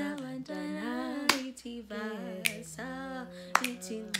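Women singing a slow, held melody without accompaniment, with sharp finger snaps about once a second.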